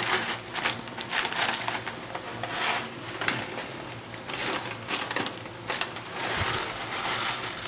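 A plastic pasta-mix pouch crinkling and rustling as it is handled and shaken, in irregular crackly bursts of noise.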